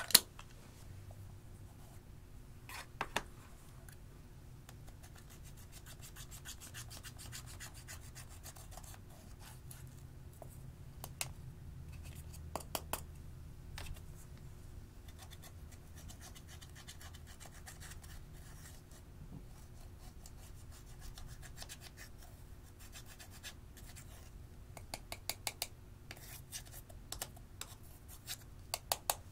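Fingers scratching and crumbling pressed eyeshadow out of a round compact, with a few sharp clicks of the compact and a quick run of clicks near the end.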